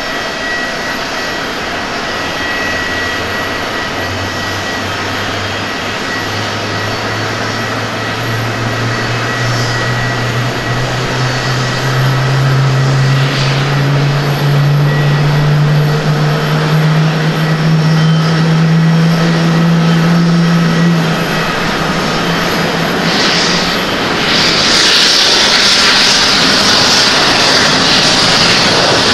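Boeing 787-10 airliner landing, its jet engines running on approach with a low hum that slowly rises in pitch. Near the end, as it rolls out on the runway, a louder high rushing roar sets in.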